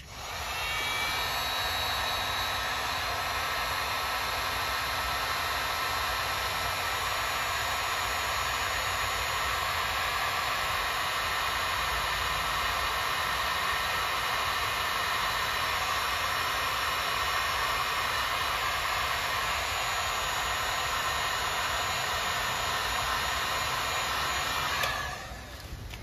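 Electric heat gun blowing hot air steadily, spinning up at the start and switched off about a second before the end. It is heating solder-seal heat-shrink butt connectors on wires until the solder inside melts.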